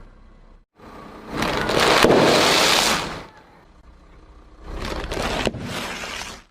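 Crackling and crunching as a car tyre rolls over and crushes objects, in two loud stretches of about two seconds each, split by an abrupt cut.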